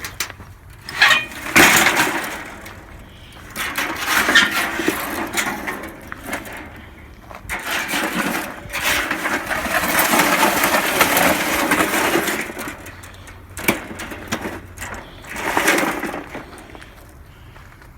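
Air conditioner sheet metal and parts being forced apart by hand: irregular bursts of scraping, rattling and clanking, each lasting a few seconds, with a few sharp knocks in between.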